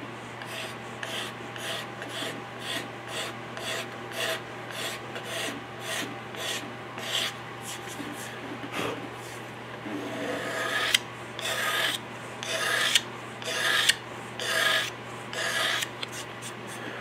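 Repeated hand strokes smoothing a curly maple rifle stock. The strokes are lighter and come about twice a second at first. From about ten seconds in they are slower and louder, about once a second.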